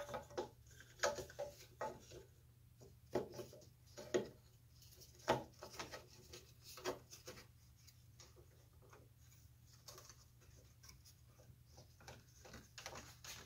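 Scattered light knocks, taps and clicks of a wooden corner-brace block and a small metal clamp being handled and test-fitted into the corner of a wooden bench frame. The taps are more frequent in the first half and sparse after.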